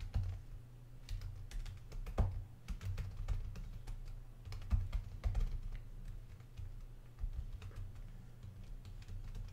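Typing on a computer keyboard: irregular runs of key clicks as an address is typed into a form, over a low steady hum.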